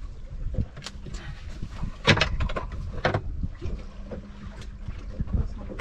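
Wind buffeting the microphone aboard a small fishing boat at sea, with a few sharp knocks, the loudest about two seconds in.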